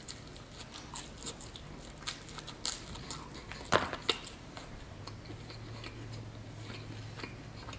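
A person chewing a bite of pizza close to the microphone: scattered short clicks of the mouth and teeth, with one sharper click a little before the middle. A faint steady low hum runs underneath.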